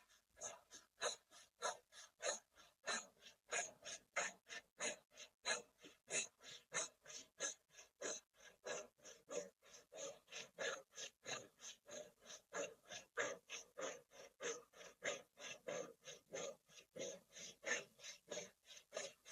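A woman's rapid, rhythmic breathing in and out through lips rounded into an "O", about two to three breaths a second, pumped from the navel centre.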